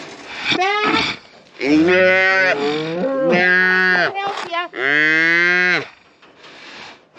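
Scottish Highland cattle mooing loudly: a short call, then three long drawn-out bawls, one after another.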